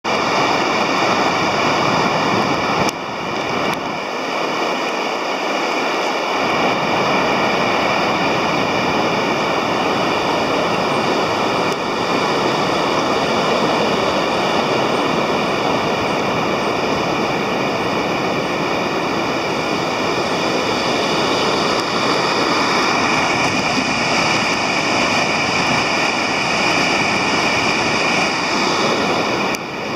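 Steady rushing of water released from a dam, pouring and churning in the turbulent pool below the outlet.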